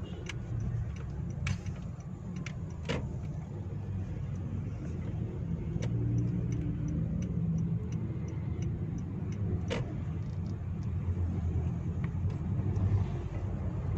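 In-cabin sound of a 2015 Honda HR-V's 1.5-litre four-cylinder engine and tyres as the car drives off: a steady low rumble that builds a little about halfway through, with a few scattered clicks.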